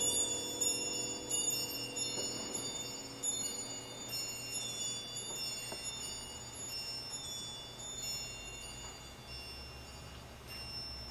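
Metal chimes ringing, high clear tones struck at scattered, uneven moments and overlapping as they hang on. A lower ringing dies away in the first second or so, and the chimes grow gradually quieter toward the end.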